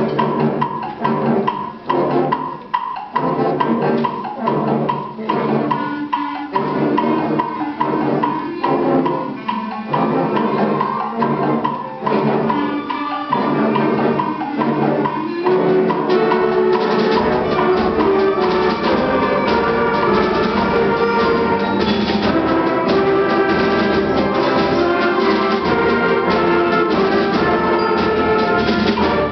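School concert band playing, with brass, woodwinds and percussion. The music moves in short, choppy rhythmic pulses for the first half, then turns fuller and steadier with deeper bass about halfway through.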